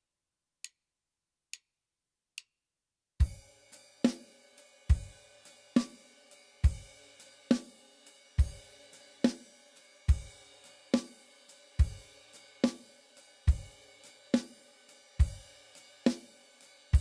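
Drum kit playing a slow swung blues shuffle. It has swung eighth notes on the ride cymbal, the hi-hat played with the foot on every upbeat eighth, bass drum on beats 1 and 3, and snare on 2 and 4. The groove starts about three seconds in, after four evenly spaced count-in clicks.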